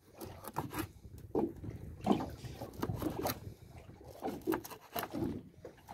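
Knives chopping and slicing fish into bait on wooden cutting boards: irregular knocks and short scraping cuts, several a second.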